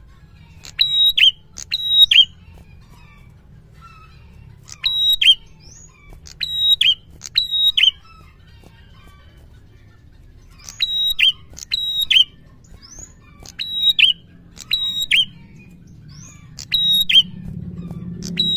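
Prenjak singing in loud, sharp chip notes. Each note is high and quickly dips lower. They come singly or in quick runs of two or three, with pauses between runs. Near the end a low hum comes in underneath.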